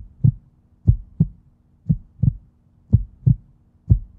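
Heartbeat sound effect: paired low thumps in a steady lub-dub rhythm, about one beat a second, over a faint steady hum.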